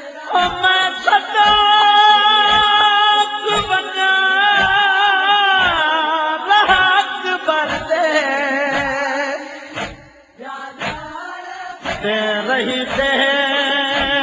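Noha (Shia lament) being sung: voices hold long wordless notes that later waver and slide, over a steady beat of low thumps about twice a second. The singing dips briefly about ten seconds in, then resumes.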